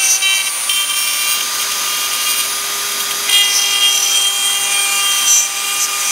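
Dremel rotary tool running at high speed, a steady high whine with grinding as its bit cuts into the plastic connector on a speaker mount; the cutting gets louder and rougher about three seconds in.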